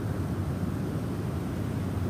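Snowstorm wind blowing steadily, a deep rushing noise with no chimes heard.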